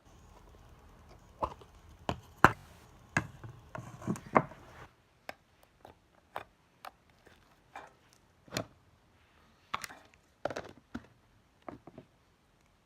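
Slime being worked by hand, giving off irregular sticky clicks and pops. They come several a second at first, then thin out to one every half second or so.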